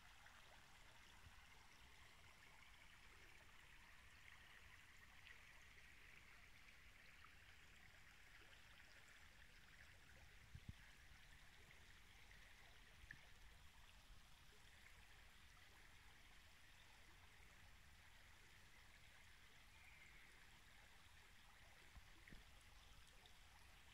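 Faint, steady rush of river water running over a shallow riffle. A faint knock sounds about halfway through and another near the end.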